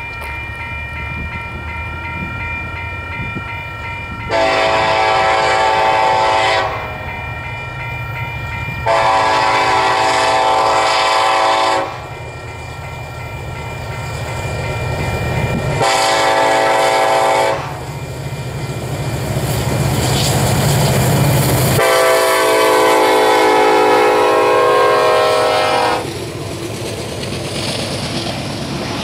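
Union Pacific freight locomotive horn blowing the grade-crossing signal: long, long, short, long. Under it is the low rumble of the approaching diesel locomotives, which grows louder. Near the end the double-stack intermodal cars roll past on the rails.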